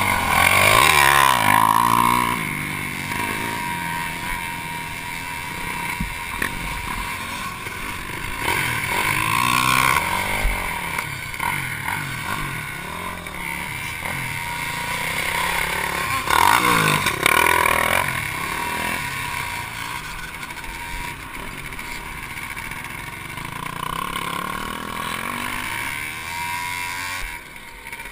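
Honda CRF250X's single-cylinder four-stroke engine being ridden hard around a motocross track, revving up and down through the gears, with sharp climbs in revs about a second in, around nine seconds and around sixteen seconds. A steady rush of wind noise runs underneath.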